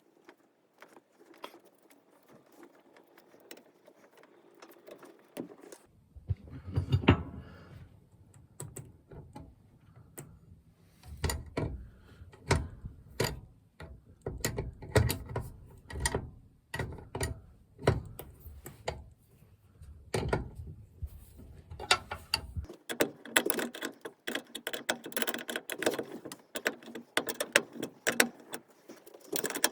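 Irregular metallic clicks, knocks and rattles of a brass air hose swivel joint and its fittings being handled and screwed together, growing busier near the end.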